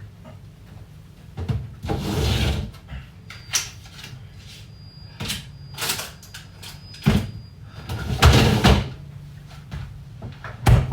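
Kitchen handling noises: a run of sharp clicks and knocks like cupboards and objects being moved, with two longer rustling scrapes, one near the start and one later on. A faint high steady tone sounds for about four seconds in the middle.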